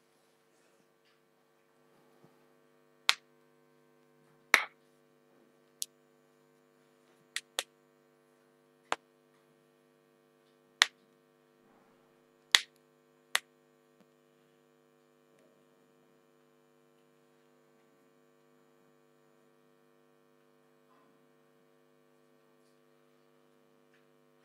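Steady low electrical hum, with about nine sharp, isolated clicks scattered between about three and thirteen seconds in.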